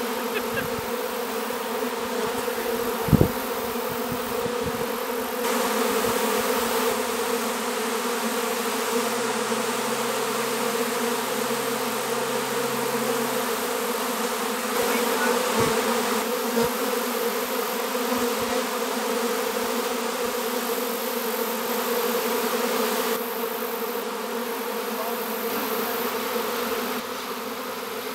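A swarm of honey bees buzzing: a steady, dense hum of many bees flying around the cluster where their queen has landed. A single brief knock about three seconds in.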